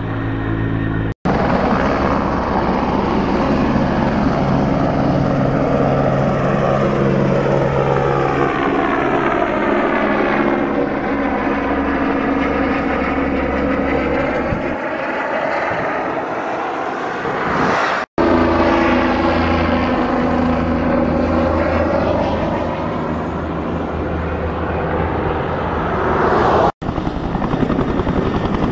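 Turbine helicopters flying low overhead one after another, rotor and engine sound with a sweeping, phasing tone that falls and rises as each passes over. The sound cuts off abruptly three times, between clips.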